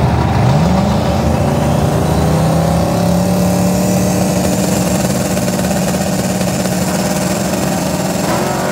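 Boosted Chevrolet Silverado V8 on the drag-strip starting line, revved up about a second in and then held at a steady high rpm on the two-step to build boost before launch. Another race car's engine runs alongside.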